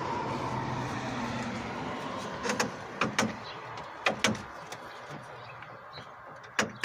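A steady rushing background noise swells and fades over the first couple of seconds. After that come a handful of sharp metallic clicks and knocks as tools and parts are handled on the engine's intake and throttle-body area.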